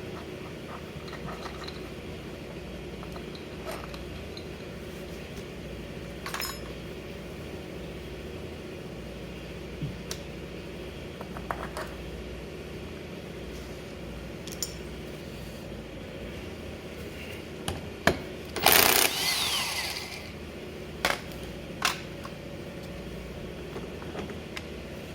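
Metal scooter variator parts being handled: scattered clicks and clinks of small metal pieces over a steady hum. About three-quarters of the way in there is a loud burst of noise lasting about a second and a half, followed by a few more sharp clicks.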